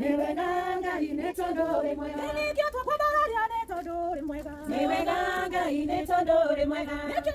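A group of women singing together without instruments, holding long notes.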